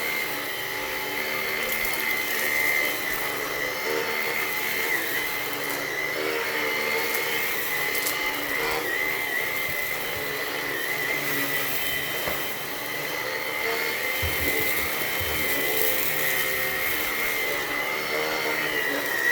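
Hoover ONEPWR Blade cordless stick vacuum running steadily on carpet, its motor giving a constant high whine, with the brush bar set to its higher speed. A few brief clicks near the middle.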